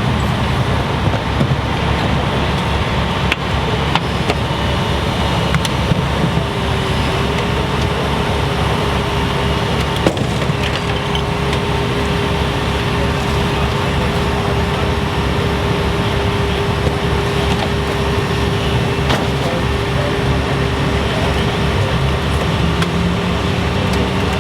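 Engines of emergency vehicles and rescue equipment running steadily during a vehicle extrication, with a steady hum coming in about seven seconds in and a few sharp clicks.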